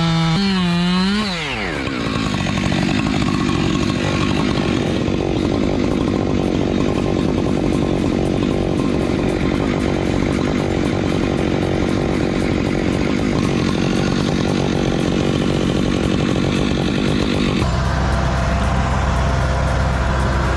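Husqvarna 592 XP two-stroke chainsaw revving high; about a second and a half in its pitch drops sharply as the chain bites into the log. It then runs under load, cutting through the wood for about fifteen seconds. Near the end it gives way abruptly to a lower, steady engine hum.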